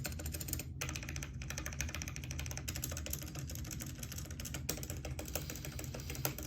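Fast, continuous typing on a computer keyboard covered with a t-shirt laid over the keys: a dense stream of key clicks.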